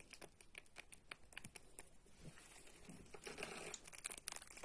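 Faint crinkling and scattered small clicks of a plastic packet of candied fruit being handled and poured out over dough, with a denser crinkle about three seconds in.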